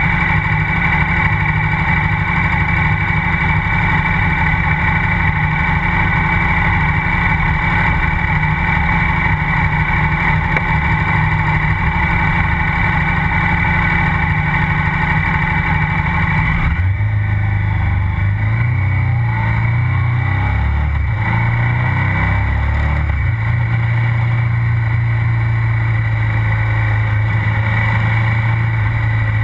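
KTM 990 SMR's V-twin engine running under way, picked up right beside its exhaust silencer together with road and wind noise. About 17 seconds in the sound changes abruptly. After that the engine note steps up and down in pitch.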